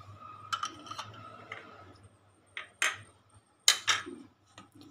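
Kitchenware handled on a counter: a few soft clicks in the first second, then two sharper knocks about a second apart past the middle.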